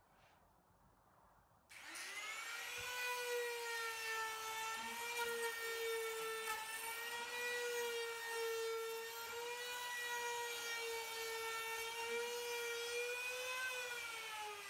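Compact trim router with a round-over bit starting up about two seconds in and running with a steady high whine, its pitch dipping slightly as the bit cuts while it is pushed along the edges of a wooden frame to round them over. Near the end the pitch starts to fall as the motor is switched off and winds down.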